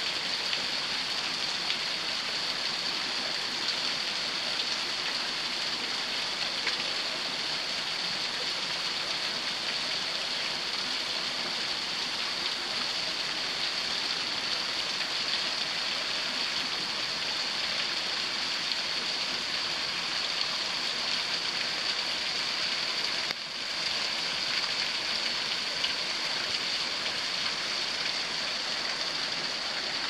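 Thin waterfall of many small streams and drips falling down a rock face and splashing into its plunge pool: a steady, even patter and rush with a strong high hiss.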